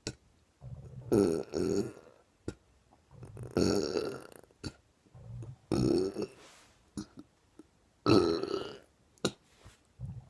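A man burping on purpose, over and over: four long burps about two and a half seconds apart, with short clicks between them.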